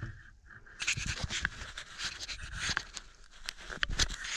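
Close rustling and crackling of movement at the microphone, with many scattered sharp clicks, starting about a second in.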